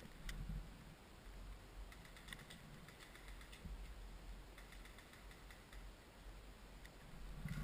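Faint, distant airsoft gun fire: three short bursts of rapid clicking, about two, three and five seconds in.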